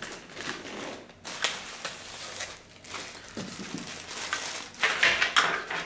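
Plastic packaging bag crinkling and rustling as a bundled car-stereo wiring harness is picked up and handled, with small clicks of its plug connectors knocking together. Loudest about five seconds in.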